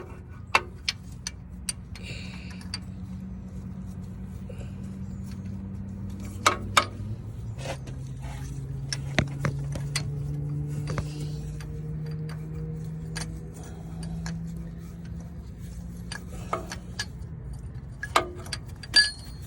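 Scattered sharp metallic clicks and clinks of a short, cut-down wrench knocking against the engine and the coolant temperature sensor as it is worked into a tight spot behind the engine. Under them runs a steady low hum that drops in pitch about seven and a half seconds in.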